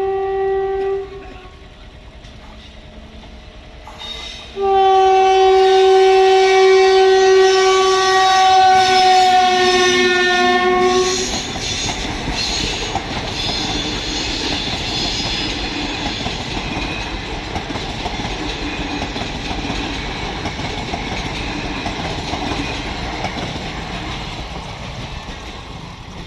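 Passenger express train's locomotive horn ending a blast about a second in, then sounding again in one long blast of about six seconds whose pitch drops slightly near its end. The train then rushes past with steady wheel rumble and clickety-clack on the rails.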